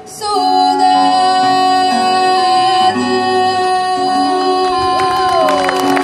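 Live acoustic trio of female voice, clarinet and nylon-string classical guitar: the final long held note over changing guitar chords. The note slides down near the end as audience applause begins.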